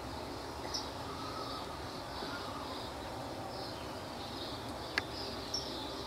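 Insects trilling steadily in a high, pulsing band, with a few short, sharp bird chirps, the loudest about five seconds in.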